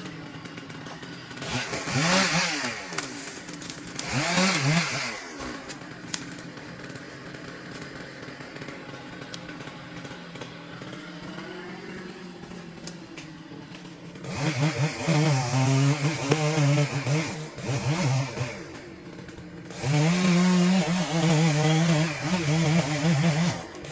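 Chainsaw idling, revved up hard in bursts: two short runs early, then two longer full-throttle runs of several seconds each in the second half.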